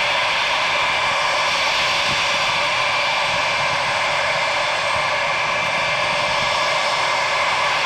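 Boeing 707's four jet engines running steadily as the aircraft taxis: a steady whine over a rushing hiss.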